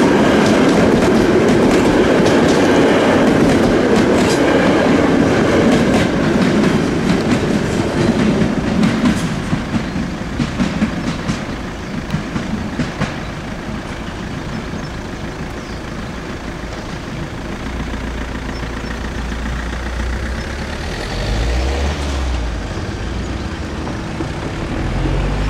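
Double-deck electric passenger train passing close by, its wheels clicking over the rail joints, the rumble fading over the first ten seconds or so as it moves away. A low rumble comes in during the last several seconds.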